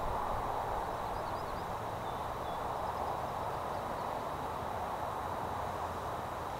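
Steady distant outdoor rumble with a few faint bird chirps about a second in.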